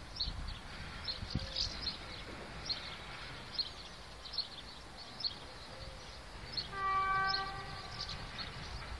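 A train horn sounds once, a short steady blast of a bit under a second, about seven seconds in. Short high chirps repeat throughout, over a low wind rumble.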